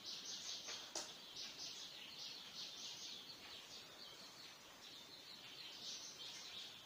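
Small birds chirping faintly in quick runs of short, high notes, with a single sharp click about a second in.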